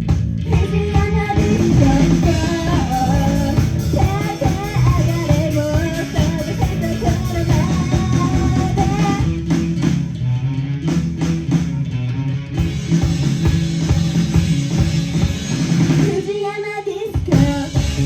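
Rock band playing live: drum kit, bass and electric guitar under a sung melody. Near the end the drums and bass stop briefly before the band comes back in.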